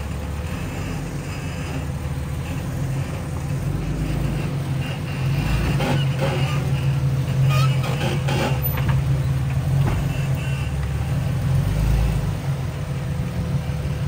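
Modified rock-crawling Jeep's engine running at low revs as it crawls over rock ledges, getting louder about five seconds in, with a few short knocks in the middle.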